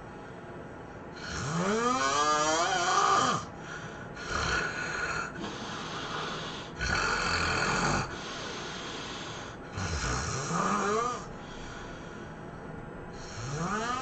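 A sleeping person snoring intensely: about five loud snores a couple of seconds apart, several of them with a pitch that slides upward.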